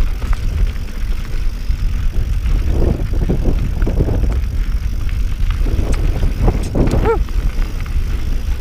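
Mountain bike rolling downhill over rocky dirt singletrack, its tyres and frame rattling with many small knocks, under a heavy low rumble of wind on the microphone.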